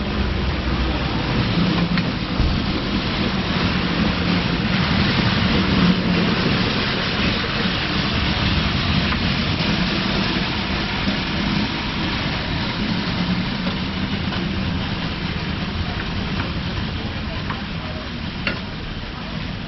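Meat sizzling steadily on a hot flat-top griddle as it is stirred and turned with a metal spatula and knife, with a few clicks of the utensils on the plate.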